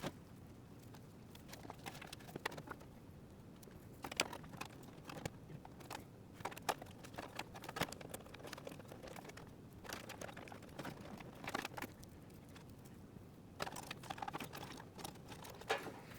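Faint, irregular clicks and rustles of power-supply cables being handled and their plastic connectors pushed into place.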